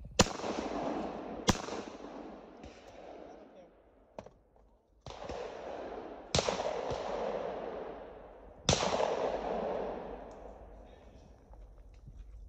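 Shotgun shots: a pair of sharp reports about a second and a half apart, then two more a few seconds later, each followed by a long rolling echo that slowly fades.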